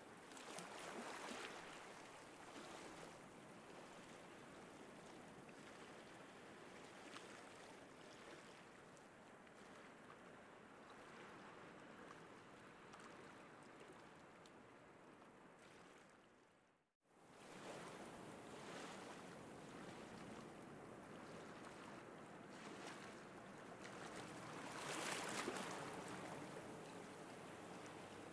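Faint sea surf washing in a steady hiss, with two swells of breaking waves, one near the start and one near the end. The sound fades out to silence and returns about two-thirds of the way through.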